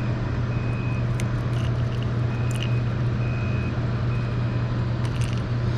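An electronic beep repeating about once a second over a steady low hum, with a few light clicks.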